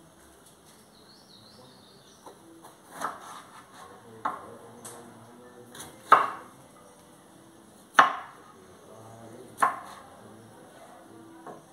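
Kitchen knife cutting a bell pepper on a wooden cutting board: single, unhurried knocks of the blade through the pepper onto the board, a second or two apart, with no steady rhythm.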